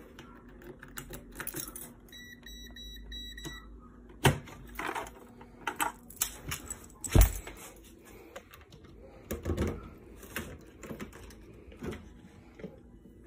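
A digital keypad safe being unlocked with a key and opened, with clicks and clunks of the lock and handle. About two seconds in comes a run of short electronic keypad beeps, and a heavy thunk of a door or latch about seven seconds in is the loudest sound. Scattered handling clatter follows as further doors are opened.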